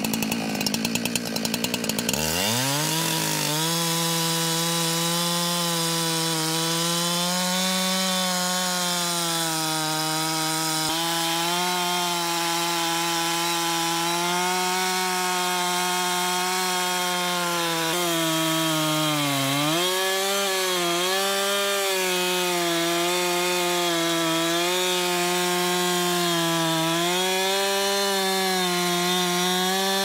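Chainsaw throttling up from a lower speed about two seconds in, then running flat out as it cuts through a red oak log. Its pitch sags a little under load and dips briefly about two-thirds of the way through.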